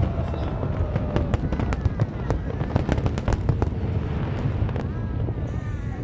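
Fireworks display: a rapid, dense string of sharp bangs and cracks over a continuous low rumble of aerial shell bursts.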